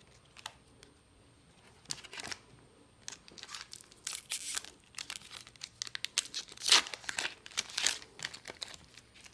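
A foil trading-card booster pack being torn open and its wrapper crinkled, in irregular rustling bursts that grow busier and louder after the first few seconds.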